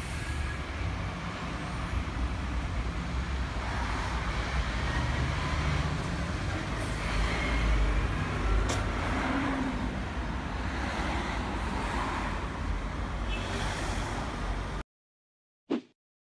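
Heuliez city bus engine running close by, a steady low rumble with street noise around it, cutting off suddenly about 15 seconds in. A single short sound follows a second later.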